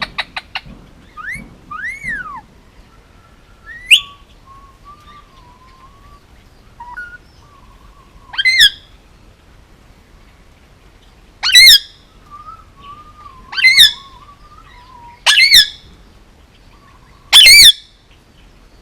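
Male Indian ringneck parakeet calling: a few quick chirps at first, then loud, harsh squawks about every two seconds, six in all, with soft wavering warbles in between.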